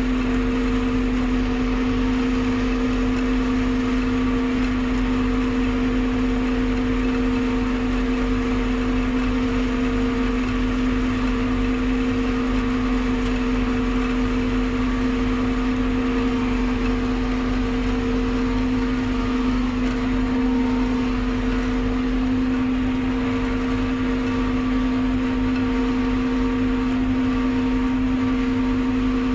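Maize silage harvester running steadily while it cuts standing maize, heard from inside its cab: a constant, even-pitched machine drone with a dense rush of noise over it.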